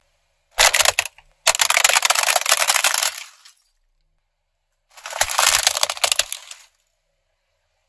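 Toy model car, a silver Volkswagen Touareg scale model, cracking and crunching as a car tyre rolls over it and breaks it apart. Three bursts of crackling: a short one under a second in, a longer one of about two seconds, and another from about five seconds in.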